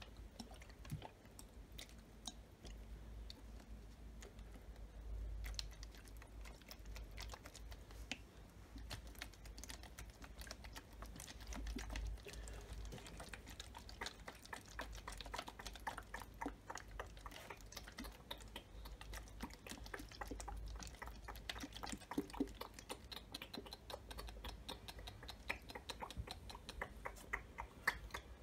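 Fingertips and nails tapping on a plastic water bottle and a drinking glass: a stream of quick, irregular small clicks that grows denser over the second half.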